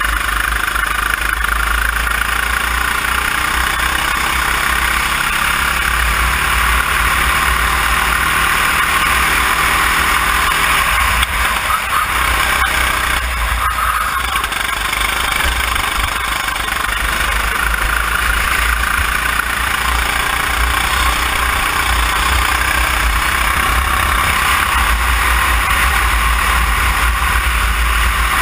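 Sodikart RT8 rental kart engine running at speed around the track, its revs slowly rising and falling through the corners, under a heavy rumble of wind and vibration on the onboard camera.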